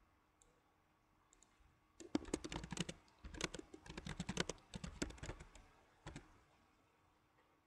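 Rapid typing on a computer keyboard: a quick run of key clicks about two seconds in, a short pause, then a longer run for about two and a half seconds, ending with a single tap.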